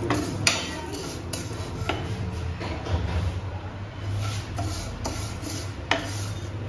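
Wooden spatula stirring vermicelli as it roasts in ghee in a non-stick kadai, scraping and rustling with a few sharp taps against the pan, over a low steady hum.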